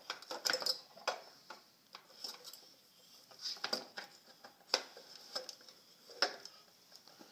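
Scattered small clicks, taps and rustles of hands handling power cords, multimeter probe leads and a hose fitting, with a few sharper knocks.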